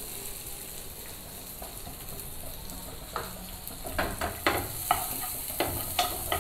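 Boiled sweet corn kernels sizzling in melted butter in a nonstick frying pan, with a steady hiss. From about three seconds in, a wooden spatula stirs the kernels across the pan in quick, irregular scraping strokes.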